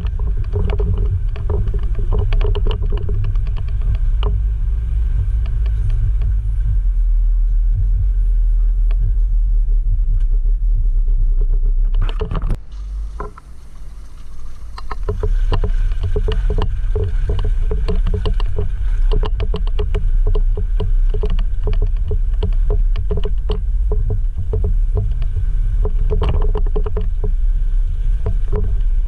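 Jeep JL Rubicon driving a rough off-road trail: a steady low rumble of engine and tyres with constant rattling and knocking over the rough ground. About twelve seconds in there is a sharp knock, then the rumble eases for a couple of seconds before it picks up again.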